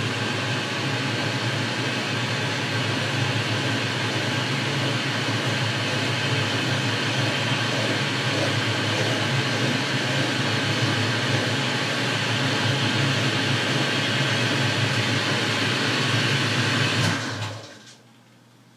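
Boxford metalworking lathe running steadily at speed while a small file rounds the end of the spinning workpiece. It is switched off near the end and winds down within about a second.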